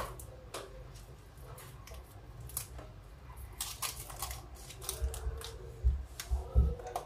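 Hands handling pieces of meat in a metal pot: irregular clicks and scrapes, with a few dull knocks in the second half.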